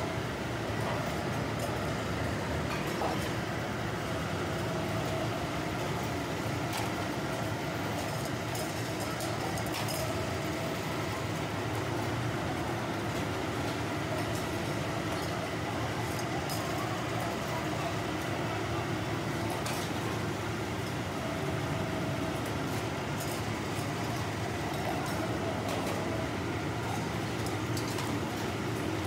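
Workshop machinery running steadily: a continuous mechanical drone with a faint whine from the metal-forming press used to draw steel oil filter canisters. A few light clicks and clinks sound now and then.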